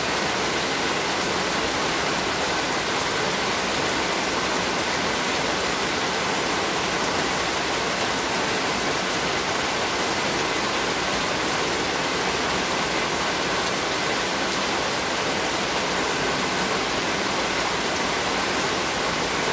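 Heavy rain pouring steadily onto standing floodwater and wet ground.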